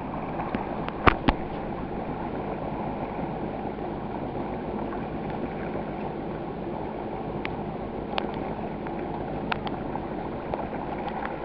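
Steady low running of a watercraft engine at idle, mixed with water gurgling around the hull. A couple of sharp clicks come about a second in, with a few fainter ticks later.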